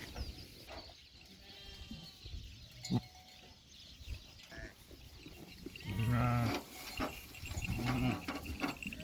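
Livestock bleating: a faint, higher call about two seconds in, then two loud, low, wavering bleats about six and eight seconds in. A single sharp knock comes about three seconds in.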